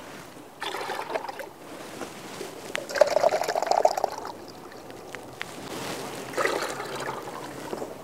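Vinegar being poured into a container of water to make a four-to-one cleaning solution: three separate pours, the second and longest the loudest.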